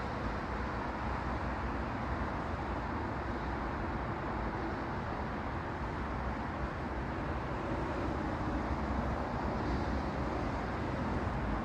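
Steady background noise with no distinct sounds standing out, its weight in the low end.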